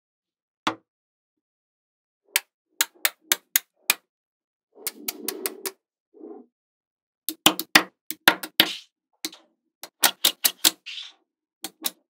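Small neodymium magnetic balls clicking as rows of them are snapped onto a block of magnetic balls: sharp clicks, few at first and then in quick clusters in the second half, with a short rattle of balls shifting about five seconds in.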